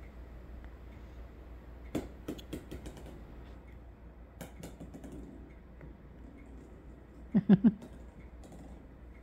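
Small plastic toy ball clicking and knocking on a hardwood floor and against a cat tree. A quick run of light clicks comes about two seconds in, a few more near the middle, then three louder low knocks in quick succession about seven and a half seconds in.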